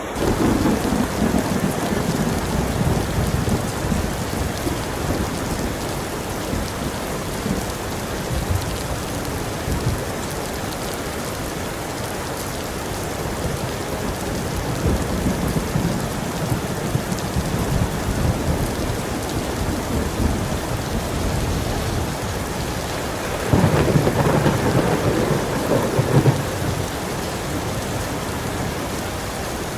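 Heavy rain falling steadily with thunder. A low rumble swells right at the start and fades over several seconds, and a louder roll of thunder comes about three-quarters of the way through, ending in a sharper crack.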